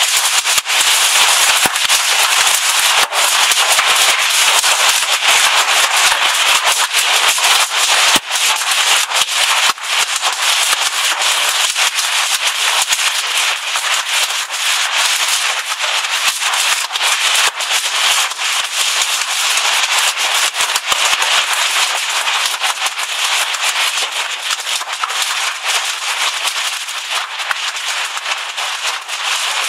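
Hail pelting down hard: a dense, loud rattle of countless hailstones striking, with many sharp clicks of single stones standing out, easing a little near the end.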